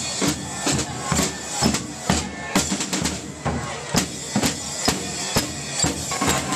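Marching drum corps playing a parade cadence on field drums and a bass drum, the heavy beats falling about twice a second with lighter drum strokes in between.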